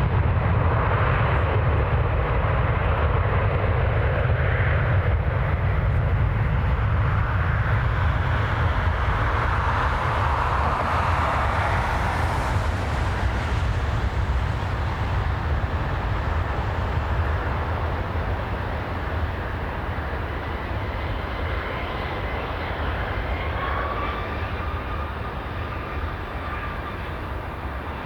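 Jet airliner's engines rumbling, slowly growing fainter. A thin steady whine comes in near the end.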